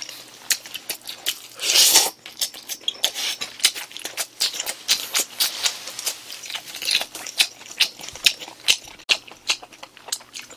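Close-miked eating of noodles in sauce: wet chewing with many quick mouth clicks and smacks, and a louder slurp about two seconds in.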